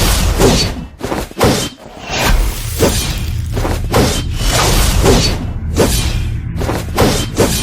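Background music with a heavy, regular beat, about two hits a second.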